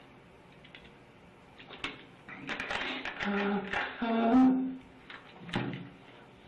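A man's wordless vocal outburst: short cries from about two seconds in, building to a loud held moan a little past four seconds. A few sharp clicks come before and after it.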